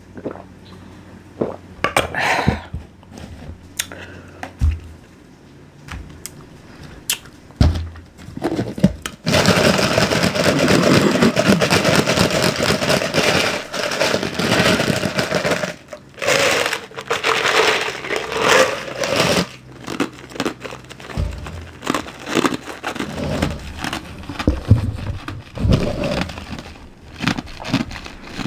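Close-up crunching and chewing, as from eating ice or cornstarch: scattered sharp crunches, with a long, loud stretch of continuous crunching from about nine to sixteen seconds in.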